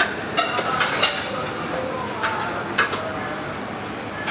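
Metal kitchen utensils clinking and clattering, a few sharp knocks with brief ringing, over steady background noise in a restaurant pizza kitchen.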